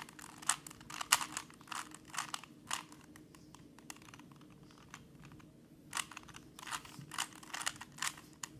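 Rubik's Cube layers being turned by hand, a fast run of small plastic clicks and rattles that pauses for a few seconds midway, then picks up again.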